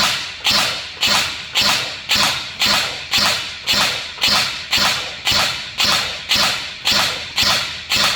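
INF M4 14.5-inch electric airsoft rifle on an 11.1 V setup firing single shots in a steady string, about two a second, each a sharp crack with a short fading tail. It is being test-fired after a circuit repair for a runaway-firing fault, and each shot comes separately rather than as a continuous burst.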